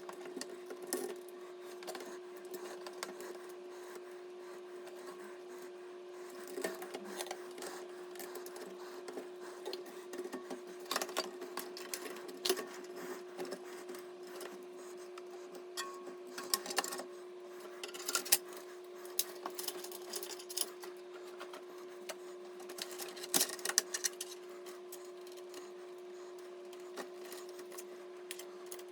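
A steady hum runs throughout, with scattered small clicks and rustles of handling over it, some in quick clusters.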